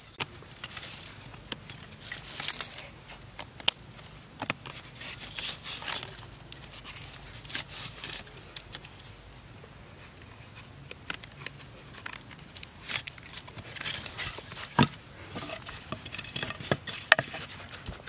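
Wooden sticks being handled and lashed together with a bark strip: scattered knocks of wood on wood, scraping and rustling of the tie, with a louder knock about fifteen seconds in.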